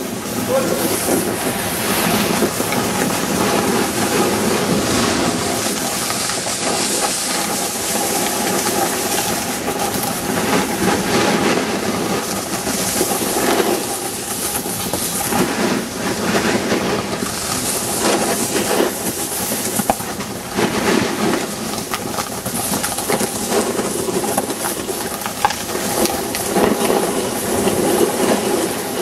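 Skiing down the snow of an indoor ski slope: a continuous scraping hiss of sliding over snow that swells and eases, with rumble from the moving camera.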